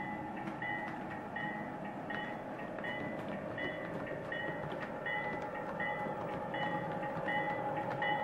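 Atlas O-scale MP15 switcher's onboard sound playing a steady diesel engine hum, with the locomotive bell ringing evenly about one and a half times a second. It grows louder as the model nears.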